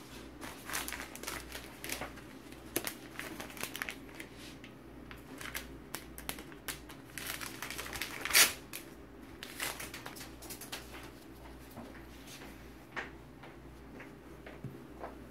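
Handling noise: irregular small clicks and rustles, with one louder click about eight seconds in, over a low steady hum.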